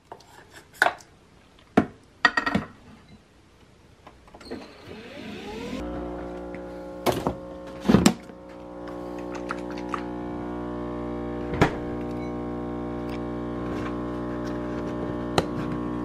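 Nespresso Vertuo coffee machine: a few clicks as the capsule goes in and the head is closed, then its motor whirs up in pitch and settles into a steady hum as it spins the capsule and brews. Sharp knocks sound twice about seven to eight seconds in, and once more near twelve seconds.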